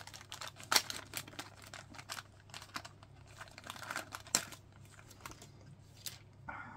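Small zip-lock plastic bag crinkling and crackling in the hands as it is opened and a kit figure part is pulled out; the crackle thins out after about four and a half seconds.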